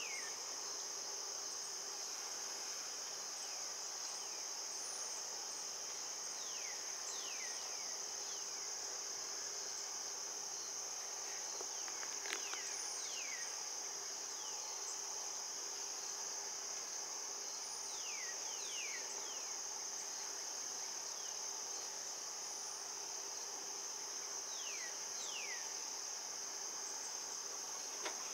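A steady, high-pitched chorus of insects, with short falling whistles coming in small groups every few seconds and one faint click about twelve seconds in.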